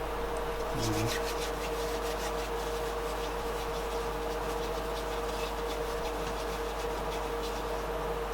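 Fingers kneading a lump of Pattex two-part repair putty, giving faint irregular rubbing and rustling over a steady background hum.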